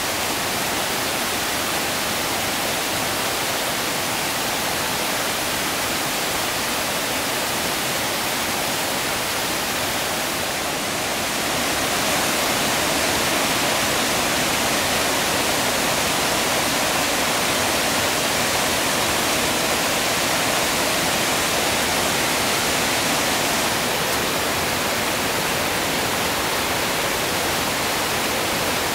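Shallow forest stream running over rocks: a steady hiss of rushing water. It grows a little louder about twelve seconds in and eases slightly again later on.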